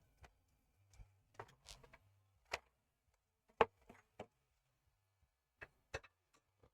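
Small hand tools being handled on a repair bench: a scattering of short, sharp clicks and taps at irregular intervals, over a faint low hum.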